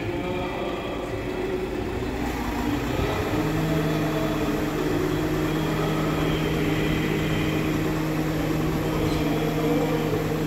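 Truck-mounted aerial work platform running, a steady mechanical hum. About three seconds in it settles into a constant low drone with a faint high whine above it.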